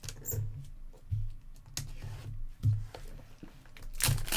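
Light clicks of keyboard typing and handling, then near the end the crinkling of a foil trading-card pack wrapper being torn open.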